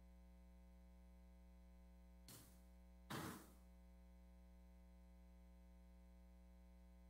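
Near silence over a steady low electrical hum, with two brief soft noises, a faint one about two seconds in and a louder one about three seconds in.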